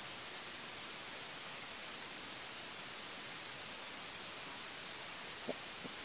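Steady, even hiss of recording noise, stronger in the high frequencies than the low, with two faint brief sounds near the end.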